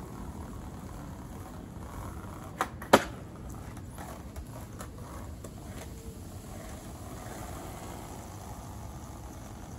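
Skateboard clacking on pavement: two sharp clacks about two and a half seconds in, the second much louder, then light clicking of the wheels rolling over the path, over a steady low rumble of wind.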